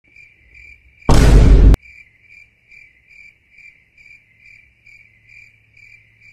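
Cricket chirping, a steady train of short high chirps about two to three a second, the stock comedy effect for an awkward silence. About a second in, a single loud burst of noise with a deep low end, like a boom or whoosh effect, cuts off after about two-thirds of a second.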